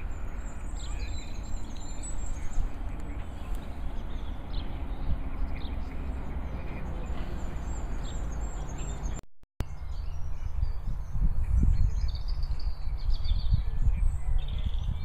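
Small songbirds chirping and singing over a steady rumble of wind on the microphone. The sound cuts out briefly about nine seconds in, and the wind rumble turns gustier after it.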